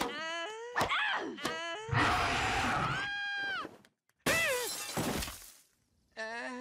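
Animated-cartoon sound track: a boy's short strained grunts and yelps, then a loud roar and a high held scream. About four seconds in comes a window pane shattering, with a falling yell over it.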